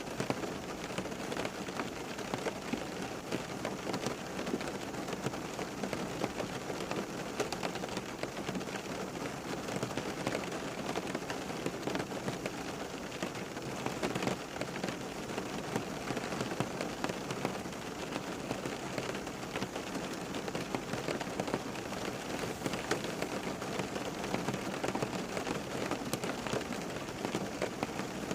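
Steady rain falling on a surface: an even hiss dotted with many small, sharp drop ticks.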